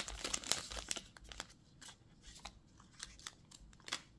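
Small clear plastic bags of spare drone propellers crinkling as they are handled, densest in the first second. After that come a few scattered light clicks and rustles as they are put down.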